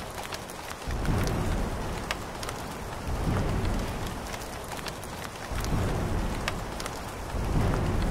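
Steady rain with scattered sharp drop ticks, and deep rumbles of thunder swelling up four times, about every two seconds.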